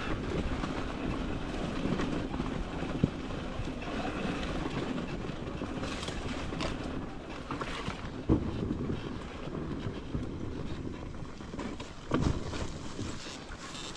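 Enduro motorcycle engine running at low revs, with a few knocks from the bike about 3, 8 and 12 seconds in.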